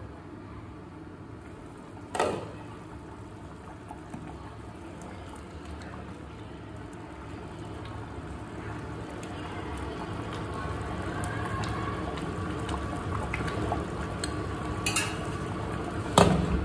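Fish curry bubbling at a boil in a metal pan on a gas stove. A glass lid clinks as it comes off about two seconds in, a ladle stirs the curry, and the lid clanks loudly as it goes back on near the end.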